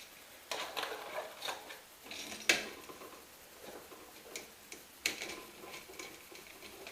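Small scrapes and clicks of a screwdriver working the terminal screws of a GFCI outlet as the wires are pushed in and tightened, with a sharper click about two and a half seconds in and another near five seconds.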